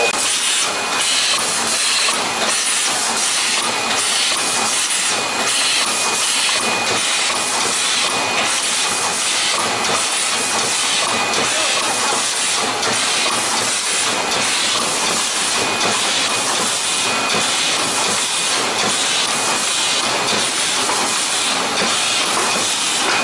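An automatic toothpaste tube packaging machine running: a steady hissing noise with a regular mechanical clack repeating about every 0.7 seconds as the conveyor and cartoning mechanism cycle.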